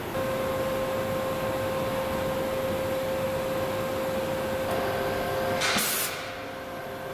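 Orbital welding machine running with a steady whine; a second tone joins about two-thirds in. Near the end comes a short burst of hiss, and then the machine goes quiet.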